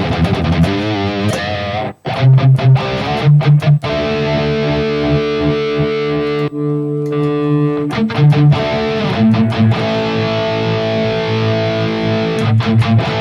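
Distorted electric guitar played through a Tube Screamer-style overdrive into a high-gain amp sound: a riff of low chugging notes and ringing held chords, with a brief stop about two seconds in.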